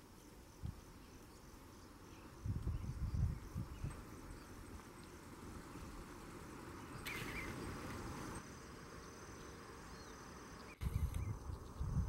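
Faint outdoor ambience of insects chirring, a thin pulsing high tone. Low rumbles come about two and a half seconds in and again near the end, and a brief hiss comes about seven seconds in.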